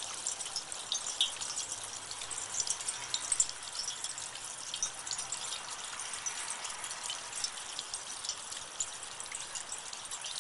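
Water running down a chain of copper rain chain cups, splashing steadily with many small drops ticking.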